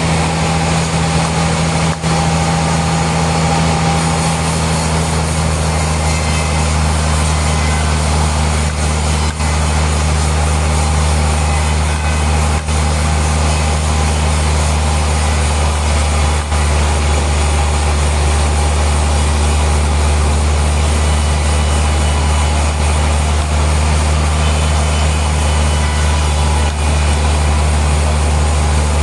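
Sawmill machinery running with a constant low drone and a dense wash of mechanical noise over it, unchanging throughout.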